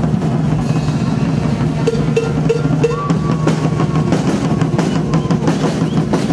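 Guggenmusik carnival band playing loudly: marching drums, a carried drum kit and cymbals beating under trombones and other brass, over a steady low bass note.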